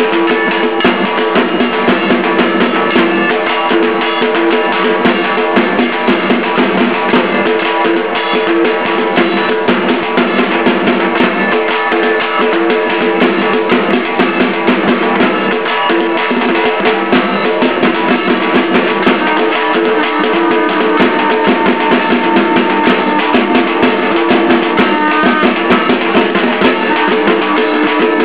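Loud, continuous drum-led music, a steady beat of drums with pitched instrumental sound over it, playing without pause.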